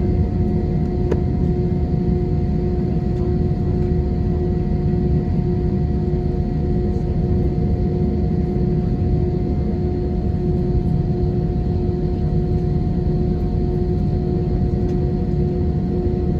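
Airbus A320 heard from inside the passenger cabin: a steady low rumble of engine and air noise with an even hum running through it, not changing in level.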